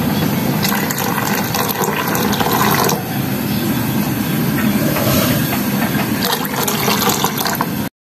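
Milk being poured into a steel saucepan of boiling tea on a gas burner, then the tea bubbling, with a steady hiss. The sound cuts off abruptly near the end.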